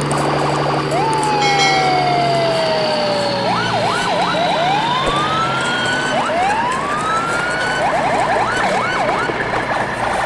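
Emergency-vehicle siren sound: a long falling tone, then slow rising wails and quick up-and-down yelps, over steady noise.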